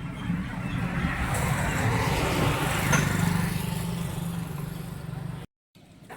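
A motor vehicle's engine running close by, growing louder over the first three seconds and then easing off, as if passing; the sound cuts off suddenly near the end.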